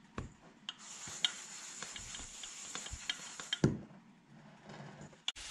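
Soft rustling and small clicks as raw liver slices are dropped into seasoned flour in a stainless steel mixing bowl and turned in it, with one dull thump partway through.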